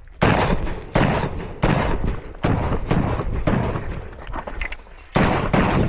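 A string of rifle shots on a practical rifle stage: about four shots roughly a second apart, a few weaker reports, then a louder shot near the end, each one ringing out after the crack.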